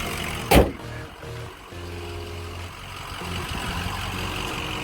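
Ford Power Stroke diesel engine idling steadily after a starting-fluid-assisted hot start, with one sharp knock about half a second in.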